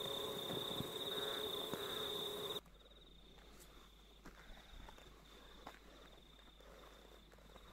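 Steady high-pitched buzzing of summer insects, a fast-pulsing drone. It drops suddenly to a much fainter level about two and a half seconds in.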